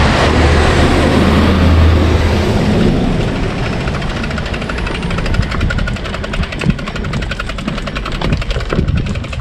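A vehicle passes for the first few seconds. Then, from about four seconds in, a bicycle's freewheel ticks rapidly and evenly as the bike rolls along without pedalling.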